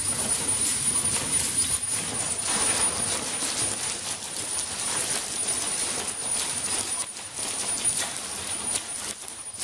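AMOSII hexapod robot walking over gravel, its feet scraping and knocking the stones in a rapid, irregular run of small clacks and crunches. A steady high-pitched whine runs under it.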